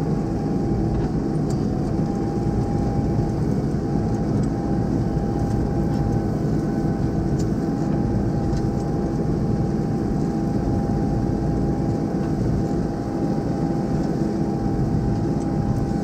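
Tractor running steadily under load while pulling a four-furrow reversible plough through the ground, with a faint steady whine over the engine drone.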